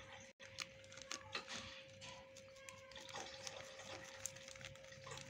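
Faint rustling and crinkling of a clear plastic bag as wheat flour is poured from it into a bowl, over a steady faint hum.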